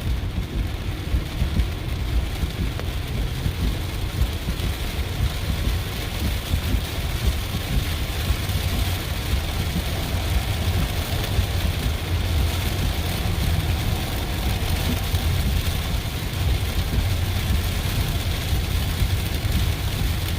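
Inside the cabin of a Tesla electric car driving on a rain-soaked road: a steady low road rumble under the hiss of tyres on wet pavement and rain on the car. The hiss grows louder partway through.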